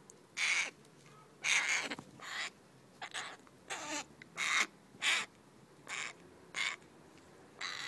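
Young crow calling with its bill wide open: short, harsh caws repeated about once a second, some ten in all.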